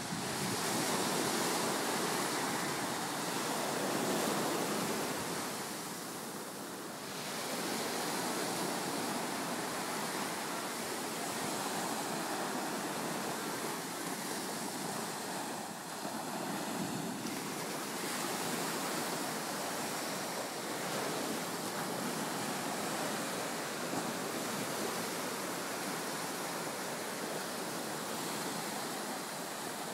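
Ocean surf breaking and washing up a sandy beach: a continuous rush of waves that swells and eases slightly.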